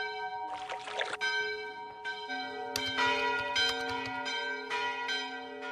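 Opening theme music of ringing bell-like chimes, struck again and again in a quick run of notes from about two seconds in. A short splash into water comes about half a second in.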